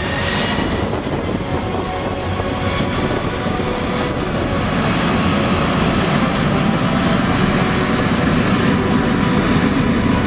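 Jet engines of a jetBlue Airbus A320 (IAE V2500 turbofans) running as the airliner rolls along the runway. From about five seconds in, a high fan whine rises in pitch and the deeper rumble grows louder as the engines spool up.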